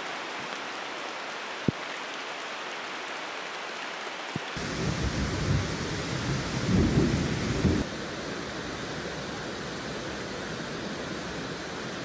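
Heavy rain falling steadily, with a low rumble for about three seconds in the middle that starts and stops abruptly.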